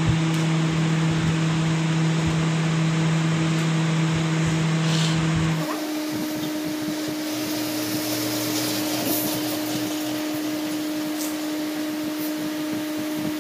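Steady hum of a running electric machine, like a workshop fan, with a low tone that drops away about six seconds in, leaving a lighter hum. A few faint clicks are heard over it.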